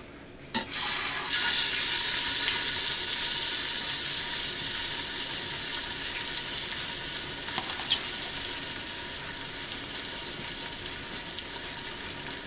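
Seasoned chicken laid into hot oil in an Instant Pot: a short clack, then a loud sizzle from about a second in that slowly dies down as it fries.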